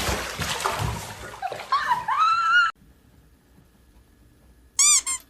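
Water splashing and sloshing, ending in a drawn-out animal cry that rises and falls. After an abrupt cut comes a quiet stretch, then two short high cries near the end.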